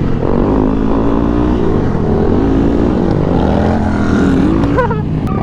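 Dirt bike engine revving, its pitch rising and falling several times as the throttle is opened and closed, with a sharp rise near the end.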